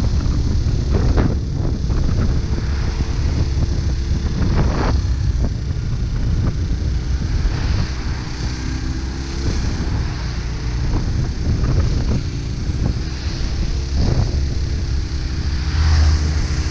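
Honda CB250N Superdream's parallel-twin engine running on the move, its pitch rising and falling a few times, under heavy wind buffeting on the microphone.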